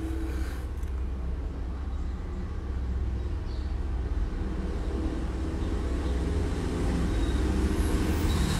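Steady low rumble of a motor vehicle engine running, with a faint hum above it.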